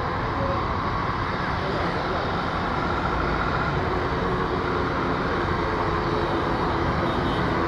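Boeing 737 MAX 8's CFM LEAP-1B jet engines at takeoff thrust: a steady noise that builds slightly as the airliner rolls and lifts off.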